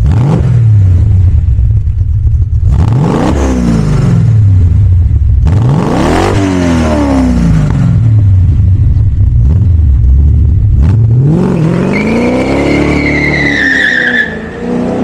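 1971 Maserati Ghibli 5000 SS's 4.9-litre V8 revved up and back down to idle three times. Near the end it pulls away hard with a squeal of tyres.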